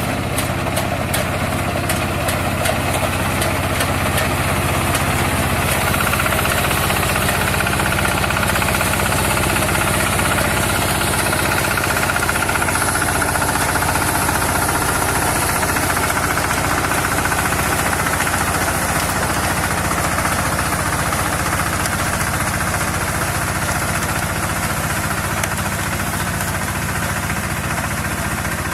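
Mini rice combine harvester running steadily, its engine note constant, with a fast regular ticking over the first few seconds.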